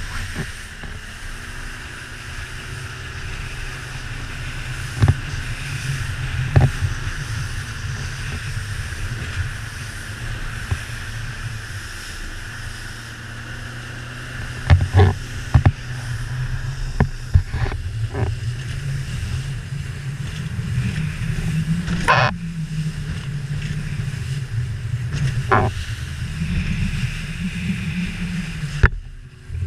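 Outboard engine of a rigid inflatable boat running under way through rough sea, a steady rumble under water and wind rush. Several sharp thumps cut through it, the loudest a little past halfway.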